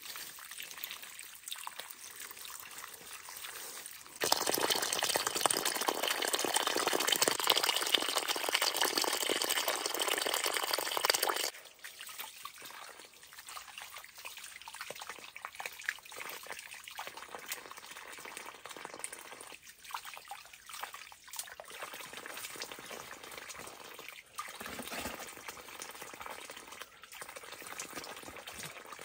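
Small creek water trickling and running. About four seconds in, a much louder rush of water starts abruptly, lasts about seven seconds and cuts off sharply, leaving the fainter trickle again.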